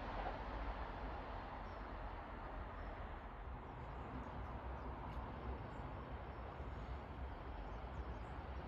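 Faint steady outdoor rumble, with a few faint bird chirps in the second half.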